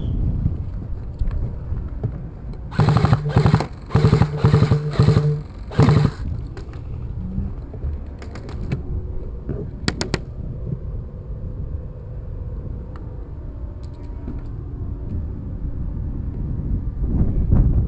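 Airsoft gun firing six short bursts in quick succession, each a loud mechanical buzz. A few sharp clicks follow, over low wind and handling noise.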